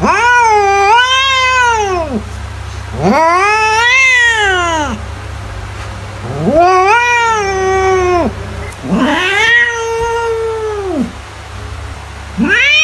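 Domestic cat meowing in long, drawn-out calls of about two seconds each, every one rising and then falling in pitch; four calls, with a fifth starting near the end.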